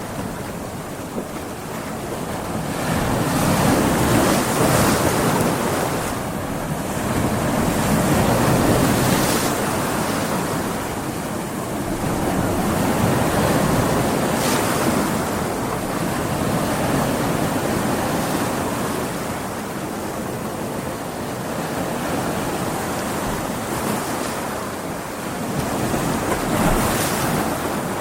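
Big ocean waves breaking and washing on a beach in stormy weather, a continuous surf rush that swells and eases every few seconds, with wind.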